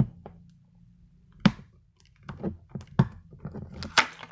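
Cardboard product box being handled and opened: scattered light clicks and rustles, with a few sharper thunks, the first right at the start and then about a second or so apart.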